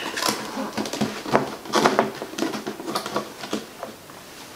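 Lid of a cardboard stethoscope box being worked open by hand: irregular scrapes, rubs and small clicks of cardboard, fading near the end.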